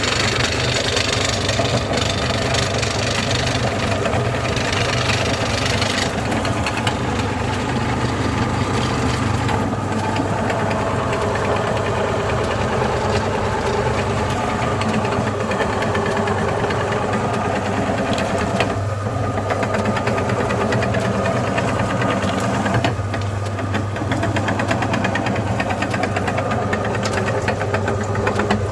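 Electric meat grinder running steadily under load, its motor humming with a dense rattle as it grinds hard-candy lollipops.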